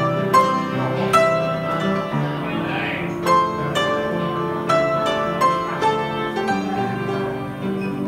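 Grand piano played solo: a slow melody of single struck notes in the upper range, each left to ring, over held low chords.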